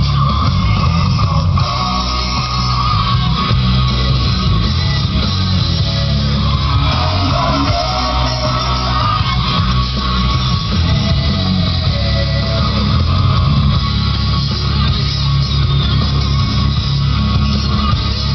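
Music led by guitar, with a bass line underneath.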